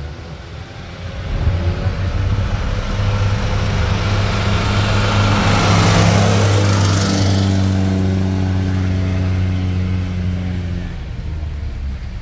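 A car's engine pulling steadily up a hill climb as it passes by. It grows louder from about a second in, is loudest about six seconds in and fades away near the end.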